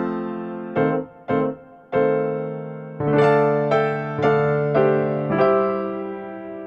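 Background music: a slow keyboard melody of single struck notes, each ringing and fading, about two a second, with a longer held chord near the end.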